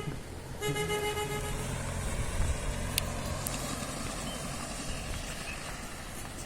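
A vehicle horn honks with a steady tone, cut off right at the start and sounded again for about a second, over the running of a motor vehicle on the road. Two sharp clicks come about halfway through.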